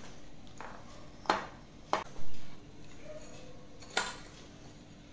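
Metal spoon clinking against glass dessert bowls while crushed biscuit crumbs are scooped and layered: a few sharp clinks spread over several seconds.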